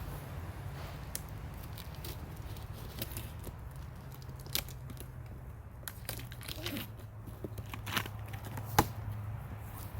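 Cardboard box and packaging being opened and handled: scattered tearing, rustling and crinkling with light knocks, and a sharp knock near the end.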